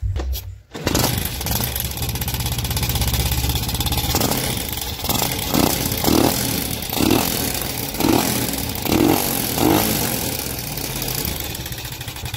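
Yamaha Jupiter's air-cooled four-stroke single-cylinder engine starting a little under a second in, then running with a rough clattering rattle, the throttle blipped about six times in the middle. The clatter is the sign of worn internal parts, which the mechanic says rob the engine of its power.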